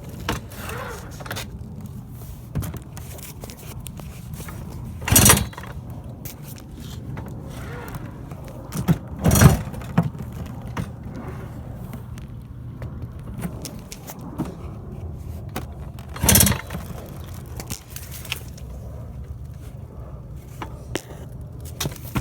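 Tomos Streetmate moped's small two-stroke engine running steadily with a ticking noise that the owner cannot explain and is asking help with. Three loud scraping knocks come about five, nine and sixteen seconds in.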